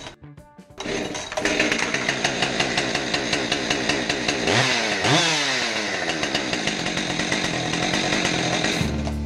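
Husqvarna 550 XP two-stroke chainsaw engine running on a test run after a fuel tank replacement, from about a second in. It is blipped up in revs once around the middle, and stops abruptly near the end.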